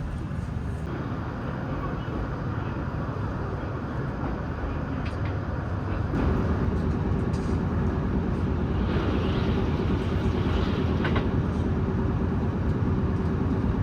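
Steady running rumble of a moving Kintetsu limited express train, heard from inside the passenger car. About six seconds in it grows louder and a steady whine joins the rumble.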